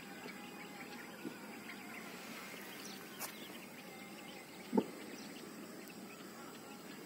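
Faint outdoor ambience: steady background noise with scattered faint chirps, a sharp click about three seconds in and a short thump just before five seconds, the loudest sound.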